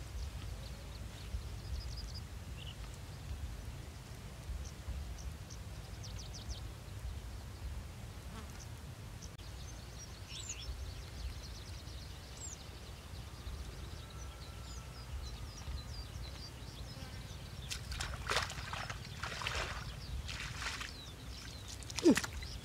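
Open-field ambience: a steady low wind rumble on the microphone with scattered faint, high chirps and ticks from insects. A few louder, short scuffing noises come near the end.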